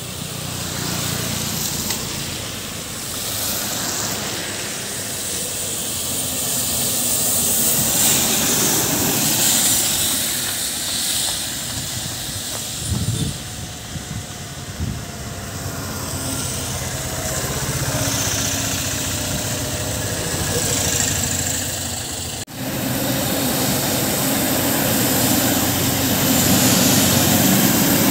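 Diesel engines of a state transport bus and then a heavy container lorry running past on a wet mountain road, with tyre hiss on the wet asphalt. The sound breaks off abruptly about two-thirds of the way through and resumes with the lorry.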